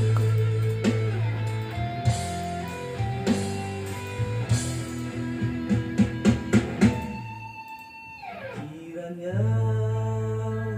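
Instrumental backing music with steady bass notes and plucked guitar, a run of quick plucked notes about six seconds in, and a note sliding down and back up near eight seconds.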